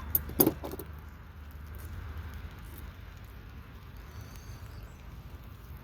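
Rain pattering steadily on a tent canopy, with a few sharp knocks of handling about half a second in.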